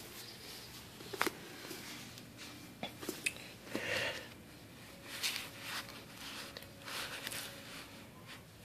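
Faint handling noise: a scatter of light clicks and soft rustles as a shotgun and its buttstock shell holder are handled and the hand-held camera is moved about.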